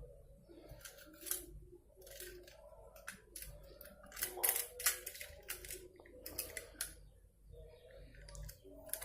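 Irregular light clicks and taps of plastic parts being handled and fitted together: the drain valve of a twin-tub washing machine being put back on its cover.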